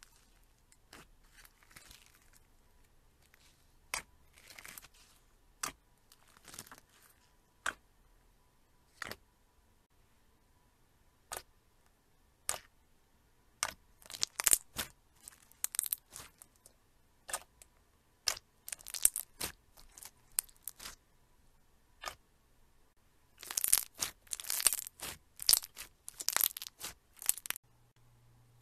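Thick blue slime being pressed and squeezed by hand, giving sharp clicks and pops. Single pops come a second or two apart at first, then dense runs of crackling near the middle and toward the end.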